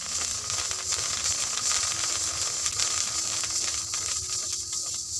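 Rice grains puffing into muri in hot sand in a pan: a steady, dense hiss with many small rapid crackles.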